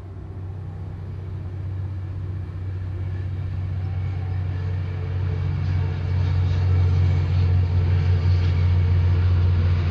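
A low, steady rumble that swells gradually louder.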